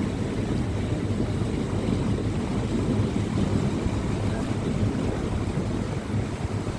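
Steady low rumble of a tour boat under way, its engine running, mixed with wind buffeting the microphone.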